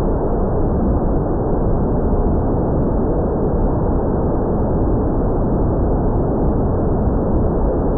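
Steady, dull rush of wind noise, even throughout, with no clear motor whine standing out.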